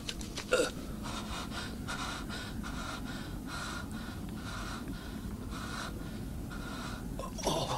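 A young man breathing hard: short, rasping breaths in and out at a steady pace, about two a second, with a louder breath near the end.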